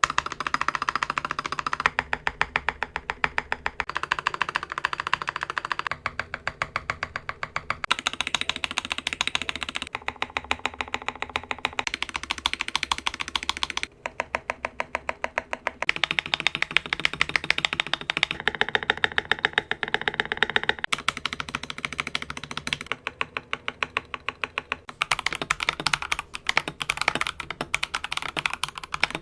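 Fast, continuous typing on an Akko 3098B mechanical keyboard with Akko CS Silver linear switches and double-shot PBT keycaps, many keystrokes a second. The tone of the typing shifts every couple of seconds, some stretches brighter and sharper, others duller.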